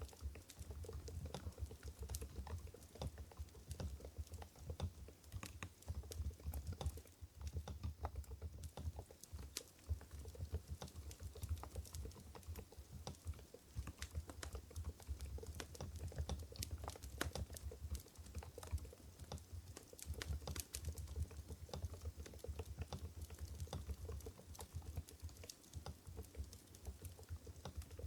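Continuous typing on an Mstone Groove GV10 mechanical keyboard with silent Coral 45 g switches: soft, muted key clicks at an uneven, fast pace, over a low steady rumble.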